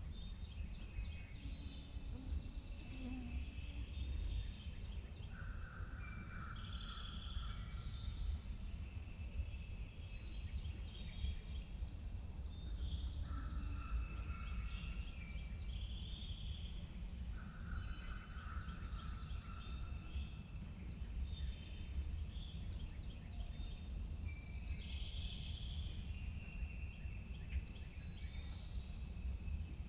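Woodland birds singing, the same short phrases repeating every few seconds with high chirps between them, over a steady low rumble.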